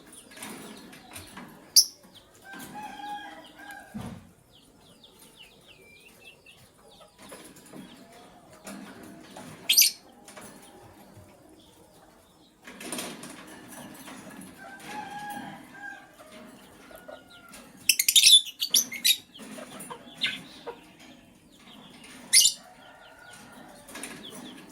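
Lovebirds chirping: a few sharp, shrill chirps spaced through, with a quick cluster of them about three-quarters of the way in, and softer short calls between. There is also fluttering and rustling of wings.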